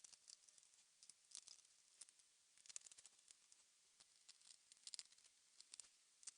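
Faint, irregular small clicks and ticks, a few bunched together about three and five seconds in: small parts of a Chromebook being handled and fitted back together during reassembly.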